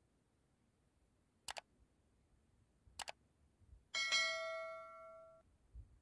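Two faint double clicks, then one metallic strike that rings like a small bell, several tones sounding together and dying away over about a second and a half.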